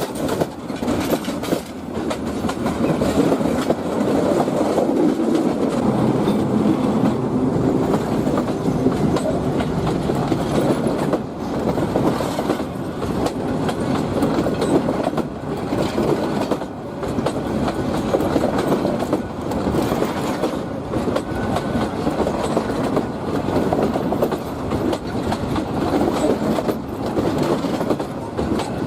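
A train running past on the rails: a steady heavy rumble of wheels on track, with sharp clacks now and then as the wheels cross rail joints.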